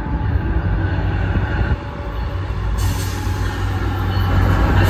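Tri-Rail F40PH diesel locomotive approaching with its passenger train, the low engine rumble growing steadily louder. A high hiss of rail and wheel noise joins about three seconds in.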